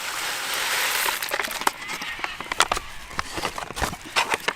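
Food sizzling in an aluminium billy on campfire coals, fading after about a second, then a spoon clinking and scraping against the pot in quick, irregular knocks as the rice is stirred.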